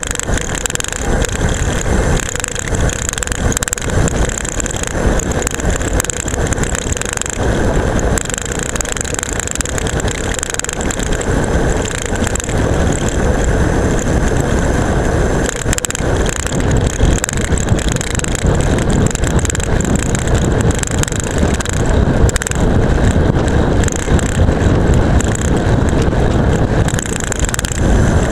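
Camera strapped to a road bike's seatpost rattling hard in its mount, a dense steady clatter mixed with wind rush and tyre noise on asphalt as the bike descends.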